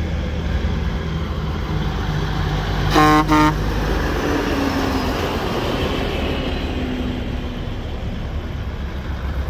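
Old vehicles' engines running with a steady low rumble as they drive past, while a vehicle horn gives two short toots about three seconds in.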